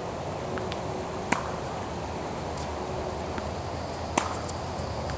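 Tennis ball struck by a racket twice, sharp pops about three seconds apart, with fainter ticks of balls bouncing on the hard court between, over a steady outdoor background.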